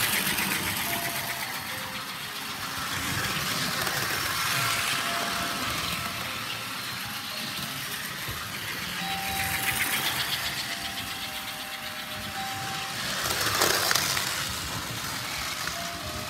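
Electric model trains running around the layout, motors whirring and wheels rumbling on the track. The sound swells and fades several times as the locomotives pass close by.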